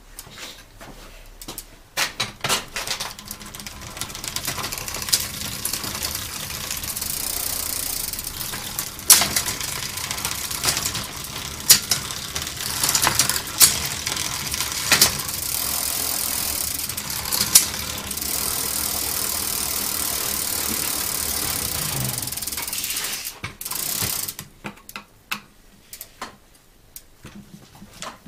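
Bicycle drivetrain turning in a repair stand: the chain runs steadily over the rear sprockets and derailleur, with a handful of sharp clicks along the way. It stops a few seconds before the end, leaving lighter scattered ticks.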